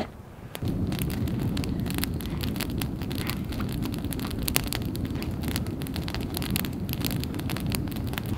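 Campfire of stacked branches burning hard: a steady low rush of flames with frequent sharp crackles and pops. The low rush comes in suddenly about half a second in, after a few quieter crackles.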